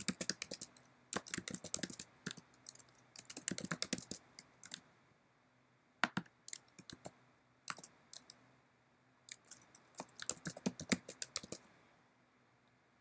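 Typing on a computer keyboard: quick bursts of keystrokes separated by short pauses, stopping near the end.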